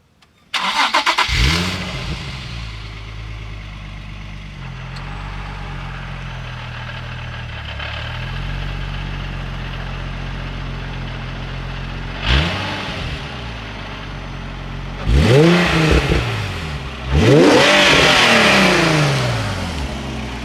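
Nissan 350Z HR's 3.5-litre VQ35HR V6, fitted with HKS intakes and a fairly quiet custom exhaust, starting up and settling into a steady idle. A short throttle blip comes about twelve seconds in, and two more follow near the end; the last is the loudest and is held for a couple of seconds before dropping back to idle.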